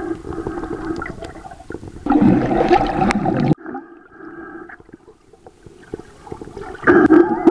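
Water swirling and gurgling, heard underwater, over a steady low drone. A louder rush of water comes about two seconds in and cuts off abruptly a second and a half later; it swells again near the end.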